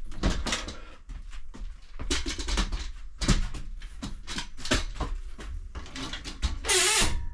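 A support prop being set and tightened against a foam insulation panel glued to a bare metal van roof: a run of clicks, knocks and rubbing, with a louder squeaking scrape near the end.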